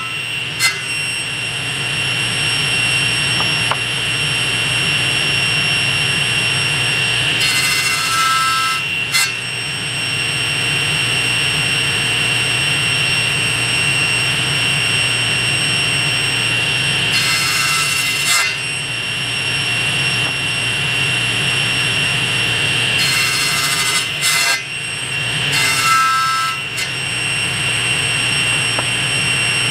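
Table saw running with a steady high whine. Four times it gives a short, louder cutting burst as the blade passes through a red oak board.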